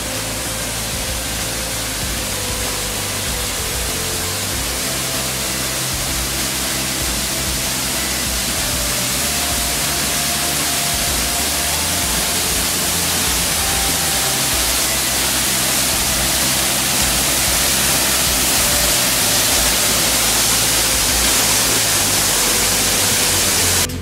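A 15-metre waterfall's falling water rushing in a steady hiss that slowly grows louder as it is approached, with music faintly beneath it.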